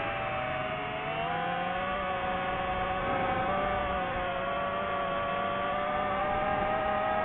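DJI FPV drone's motors and propellers whining in flight: several steady tones at once that shift a little in pitch with the throttle, dipping about a second in and rising slightly near the end.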